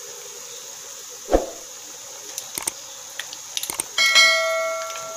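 A notification-bell chime from a subscribe-button animation rings out about four seconds in, several tones together fading over a second or two, just after a few light clicks. About a second in there is a single sharp knock, over a steady background hiss.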